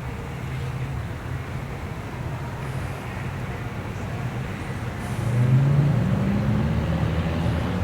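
Road traffic running past, with a vehicle engine drawing louder and rising in pitch about five seconds in as it accelerates.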